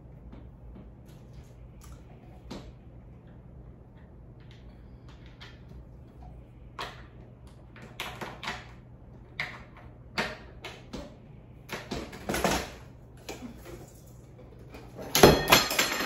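Whiteboard easel and its metal tripod legs being handled: scattered clicks and knocks as the legs are fitted, then a loud clatter about fifteen seconds in as the board is stood upright on the tripod.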